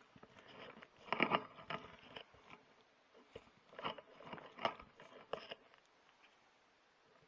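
Irregular crunching, scraping and rustling noises close to the microphone, in clusters with short clicks, loudest about a second in and again around four to five seconds in.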